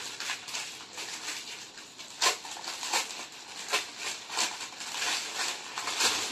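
Clear plastic garment packet crinkling and rustling as a folded kurti is pulled out of it, with a handful of sharper crackles.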